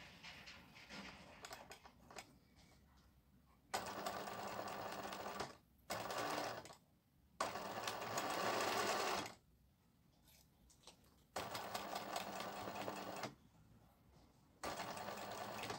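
Singer 20U industrial zigzag sewing machine stitching in five short runs of about one to two seconds each, starting a few seconds in, with pauses between them. It is stitching while the bobbin thread is not being picked up, which turns out to be down to a needle too fine for the thick fabric.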